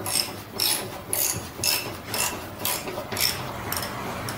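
Hand ratchet clicking in short metallic bursts, about two a second, as a sway bar bushing bracket bolt is turned.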